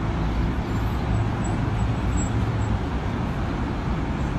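Steady road traffic noise: a continuous low rumble of passing vehicles with no distinct events.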